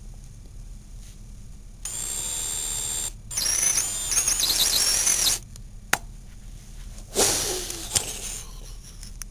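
Cordless drill with a 1/8-inch bit countersinking holes in a wooden fingerboard deck. The motor whines for about a second, stops briefly, then runs louder for about two seconds with a wavering pitch as the bit cuts the wood. A sharp click follows, then near the end a short noisy rush that fades, with another click.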